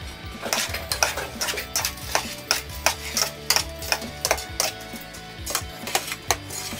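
Background music with a steady beat, over light clinks and scraping from rice being mixed in a large aluminium bowl.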